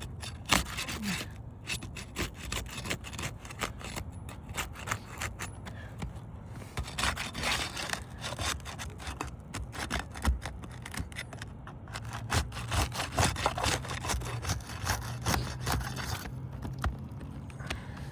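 Roof shingles being worked loose by hand and with a flat bar: dense, irregular scraping and crackling clicks. A low steady hum joins about two-thirds of the way through.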